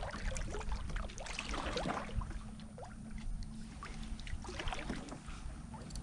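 Scattered small taps, knocks and light water sounds around a kayak as a hooked catfish on a yo-yo reel line is brought to the boat, over a low steady rumble.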